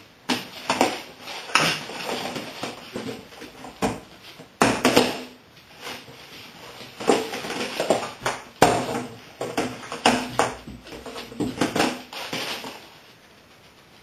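Cardboard box being nosed and pushed about on a tiled floor by a small dog: irregular knocks and scrapes.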